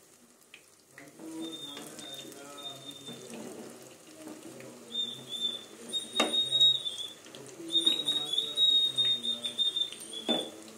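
Gram-flour moringa-flower fritters sizzling in hot oil in an iron karai as a metal spatula turns them, knocking sharply against the pan twice. A high, thin whistling tone comes and goes over the frying, mostly in the second half.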